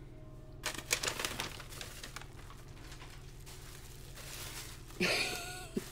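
Folded paper wrapping and plastic packing crinkling and rustling as a parcel is unwrapped, with a cluster of sharp crackles about a second in. A louder, breathy rush of noise comes near the end.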